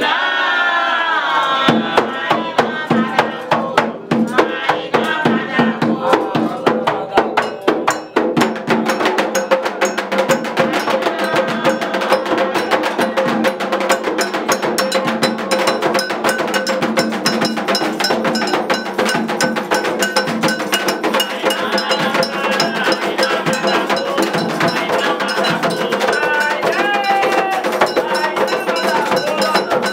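Candomblé ritual music: a metal bell struck in a fast, steady rhythm, with voices singing. The singing is clearest in the first two seconds, before the bell comes in.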